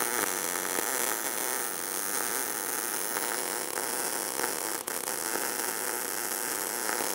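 MIG welding arc from an ESAB Rebel running .030 wire at about 16.5 volts on 1/8-inch carbon steel plate: a steady crackling hiss as a single bead is laid along an outside corner joint. At these settings the wire runs in short-circuit transfer, which gives the even frying crackle.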